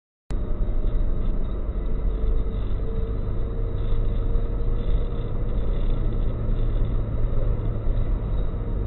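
Car driving on a highway, heard from inside the cabin through a dashcam: a steady, loud low road-and-engine rumble that cuts in suddenly just after the start, with a faint steady hum that drops slightly in pitch near the end.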